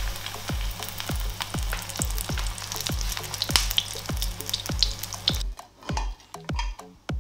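Batter-coated pork chop sizzling in hot vegetable oil in a frying pan, a steady hiss with crackling pops. It runs over electronic music with a steady kick-drum beat. The sizzling cuts off suddenly about five and a half seconds in, leaving only the music.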